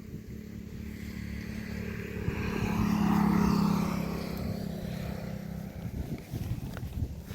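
A small engine running steadily. It grows louder to a peak about three seconds in, then fades. Its hum stops about two-thirds of the way through, leaving rustling and handling noises.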